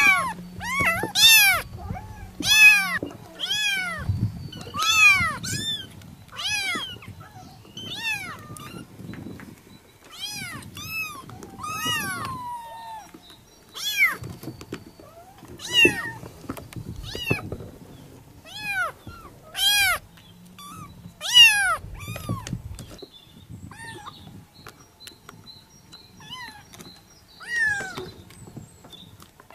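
Persian kittens meowing repeatedly in short, high-pitched calls that rise and fall, calling for their mother. The meows come thick and fast at first and thin out in the last few seconds.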